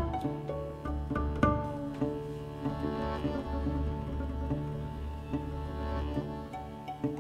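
Acoustic ensemble music from guitar, violin, accordion and double bass: plucked notes over held tones and a low bass line.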